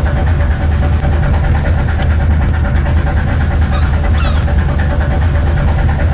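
Fishing boat's engine running steadily with a low drone. A couple of brief high cries sound over it about four seconds in.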